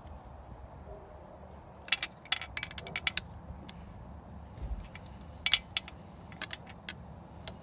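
Sharp metallic clinks and clicks of a spanner working on a bolt on the motorcycle, in two irregular bursts a few seconds apart.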